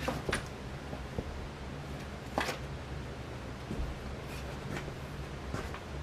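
Casablanca Panama ceiling fan with its XTR 200 motor running, a steady low hum. A few short clicks sound over it, the loudest about two and a half seconds in.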